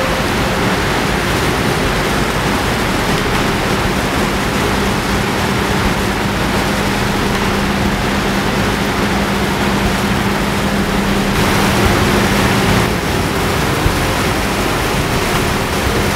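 Water rushing over a spillway into the river: a steady, even roar of noise, briefly louder about three-quarters of the way through, with a faint low hum beneath it that fades out near the end.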